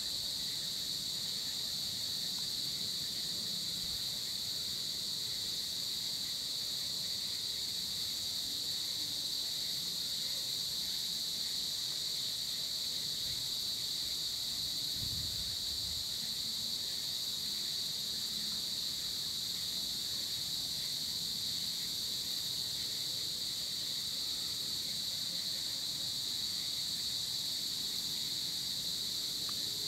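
Steady insect chorus at dusk: a continuous high-pitched shrill drone in several layered pitches, unchanging throughout.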